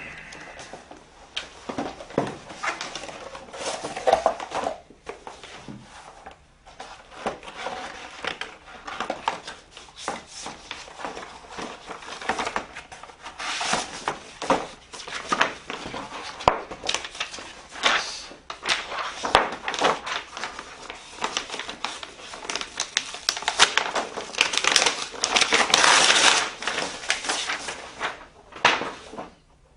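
A close run of irregular clicks, taps and crunching handling noises, densest and loudest near the end.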